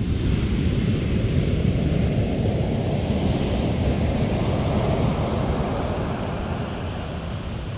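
Ocean surf breaking and washing up a sandy beach: a steady rush of waves that swells just after the start and eases a little near the end.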